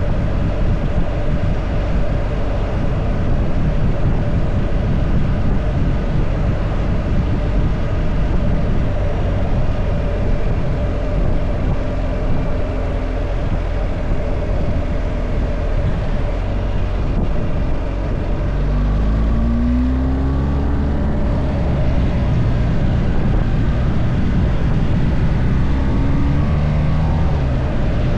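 A car on the road: steady engine and road rumble, with the engine note rising as it speeds up twice, once about two-thirds of the way through and again near the end.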